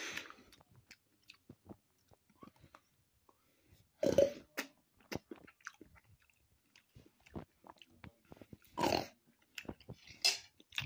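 A person chewing melon close to the mic, with scattered wet mouth clicks and two louder bursts about four and nine seconds in.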